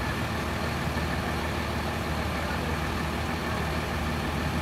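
Parked tour buses' diesel engines idling, a steady low rumble.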